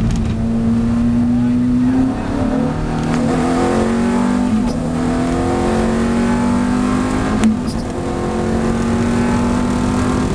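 Ferrari F430's V8 accelerating hard through the gears, heard from inside the cabin. The engine note climbs in each gear and drops sharply at upshifts about two, four and a half and seven and a half seconds in, with a short click at the last shift.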